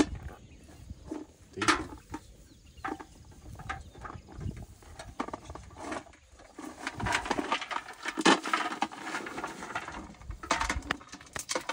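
An elephant's trunk rummaging in a galvanised metal bucket of food, with irregular clinks, knocks and rustles as the food is scooped against the metal. The busiest clattering comes about seven to nine seconds in and again near the end.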